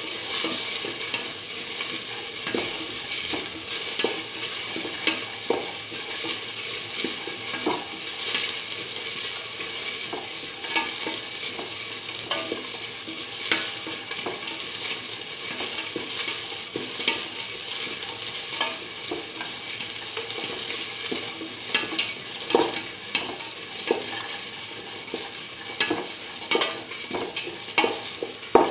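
Onion slices sizzling as they sauté in hot oil in a metal pan. A stirring utensil scrapes and taps against the pan over and over as they are mixed.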